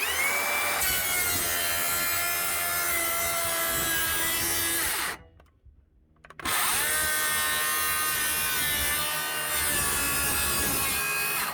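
Makita XGT 40V cordless circular saw running and cutting wood along its guide rail, in two spells of about five seconds with a second's break between. The blade is also cutting into the guide rail, a fault the owner finds appears whenever the saw cuts wood.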